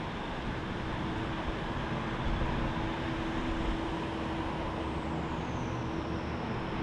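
Jet airliner engines: a steady rushing rumble with a low hum, and a high whine that falls in pitch about two-thirds of the way through.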